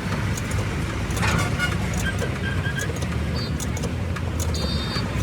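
Vehicle engine running steadily with roadside traffic noise, with scattered light clicks and a few short high tones.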